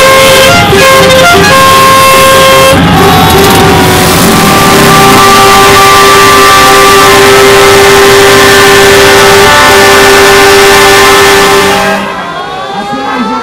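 Loud background music with long, held, horn-like notes. About twelve seconds in it drops in level and changes.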